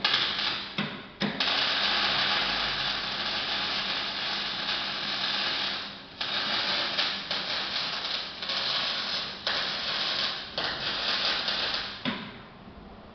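Electric arc welding on steel tube: the arc sizzles in several runs broken by short pauses, then stops about a second before the end.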